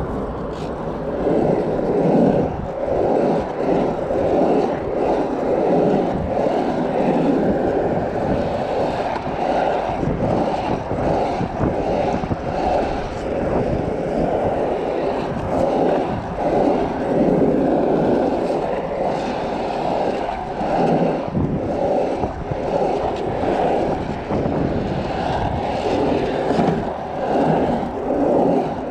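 Skateboard wheels rolling over the asphalt of a pump track: a continuous rough rumble that swells and eases every second or two as the rider pumps through the rollers and berms.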